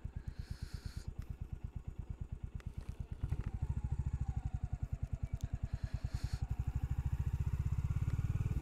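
Royal Enfield Classic 350's single-cylinder engine running with an even, rapid thumping exhaust beat while riding. About three seconds in it gets louder and fuller and stays so.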